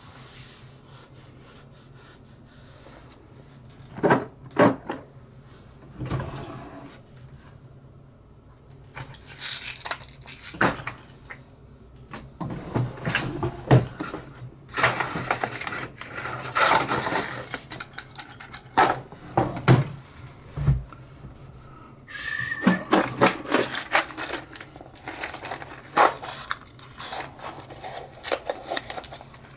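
Small metal parts and hand tools being handled: irregular clicks, taps and light scrapes, coming in quick clusters through the second half.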